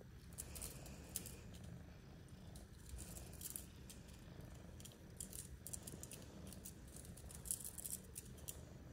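Faint rustling and swishing of a feather cat-toy wand being waved in short irregular flurries, over a low steady room rumble.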